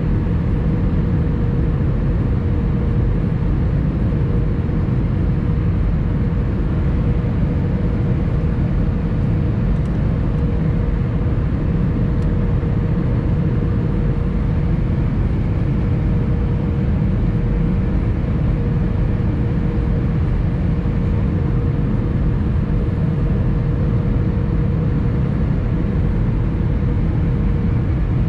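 Airbus A320 cabin noise heard from a window seat on approach with the aircraft configured for landing: a steady low rumble of the CFM56 engines and rushing air, with a constant mid-pitched hum running through it.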